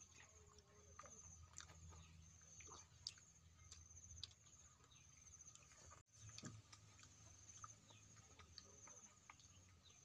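Faint outdoor ambience: an insect trilling at a high pitch in steady, repeated bouts, with scattered faint bird chirps and a few soft clicks. The sound drops out for a split second about six seconds in.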